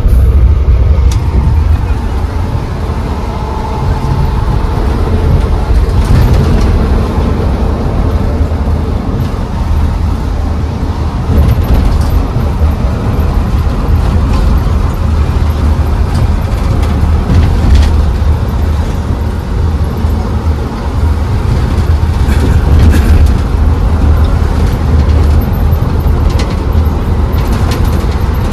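Steady low road and tyre rumble inside the cabin of a moving Olectra C9 battery-electric bus, with a few faint rattles.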